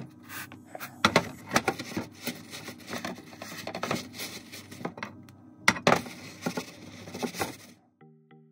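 A batter-coated corn dog being rolled and pressed by hand in a metal bowl of coating: irregular crisp crackles and clicks, with a few sharper knocks against the bowl. The crackling stops shortly before the end, and light music starts.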